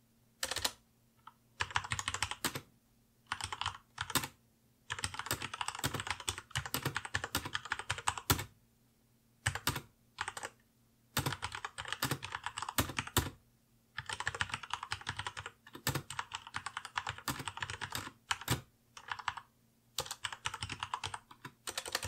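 Typing on a Corsair K65 mechanical keyboard with red linear switches: rapid runs of keystrokes, each lasting from a fraction of a second to a few seconds, broken by short pauses.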